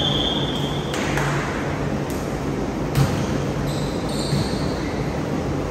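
Volleyball rally on an indoor hardwood court: the ball is struck about three times, roughly a second apart, the hit about three seconds in the loudest, with sneakers squeaking on the floor near the start and again about four seconds in. The hits echo in the large hall.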